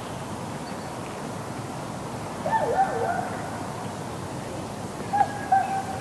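Two brief pitched animal calls over steady outdoor wind noise on the microphone: one about halfway through with a swooping pitch, then a short pair near the end.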